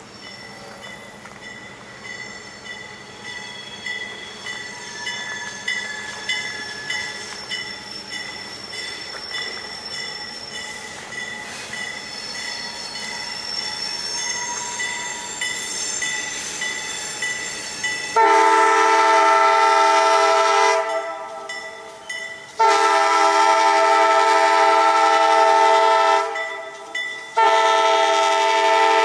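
Diesel freight locomotive horn sounding the grade-crossing signal as a train approaches: the train's running noise builds for about eighteen seconds, then a loud multi-note chord horn gives two long blasts and a shorter one.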